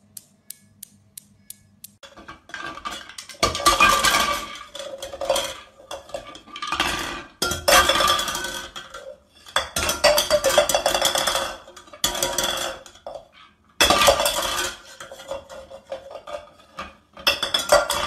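Steel balls of a chrome desk click-clack toy knocking together in a quick, fading run of clicks. About two seconds in, a macaw starts splashing and knocking about in a bathroom sink, in loud bursts a second or two long with short pauses between.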